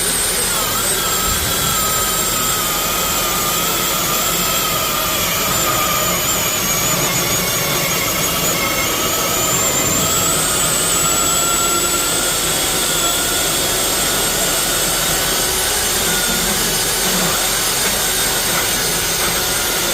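Two Milwaukee M18 Fuel cordless chainsaws running together under load, cutting through wood side by side. A steady high electric-motor whine with the rasp of the chains, the pitch wavering slightly as the saws bog and recover in the cut.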